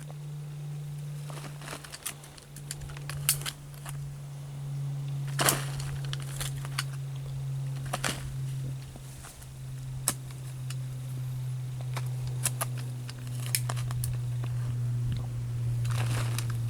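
Soil being dug and scraped out of a small fire pit with a hand tool: irregular scrapes and sharp knocks, some of them flint striking the blade. A steady low hum runs underneath.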